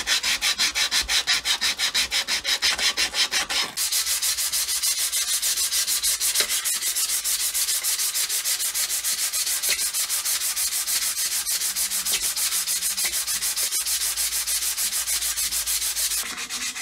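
Hand sanding with quick, even back-and-forth strokes. About four seconds in the strokes become faster and denser.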